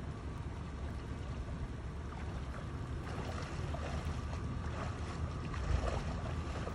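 Low wind rumble on the microphone over flowing stream water, with water splashing as a Kodiak brown bear wades and paws through the shallows after fish. The splashing starts about three seconds in and is loudest near the end.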